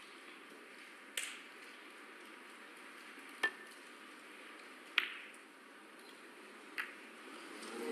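Four sharp clicks of snooker balls over a quiet hall: the cue tip striking the cue ball, then the cue ball popping a red and sliding off the bunch of reds. The loudest click comes about halfway through.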